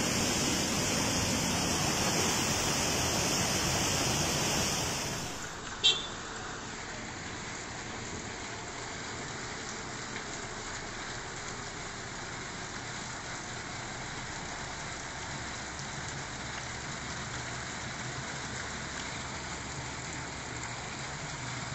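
Muddy floodwater rushing in a steady noisy roar, loud for the first five seconds or so. A sharp click comes about six seconds in, then a quieter, steady rush of floodwater carries on.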